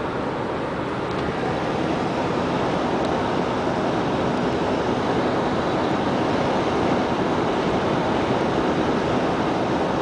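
Steady rushing road and wind noise inside a car's cabin as it drives at highway speed, with no change in pitch.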